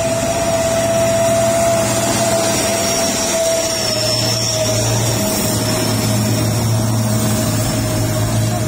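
Mitsubishi Fuso dump truck's diesel engine climbing a grade as it passes close by. It is a steady drone that gets heavier about halfway through, with a steady high whine over it and hiss from tyres on the wet road.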